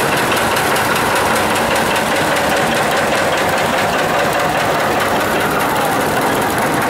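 A John Deere two-cylinder tractor drives close past, its engine running with an even, rhythmic beat of exhaust pulses.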